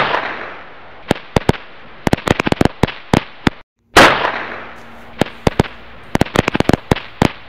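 Firecrackers: a loud bang with a fading hiss, then a run of sharp crackling pops. After a brief break to silence just before four seconds in, the same bang and crackle come again.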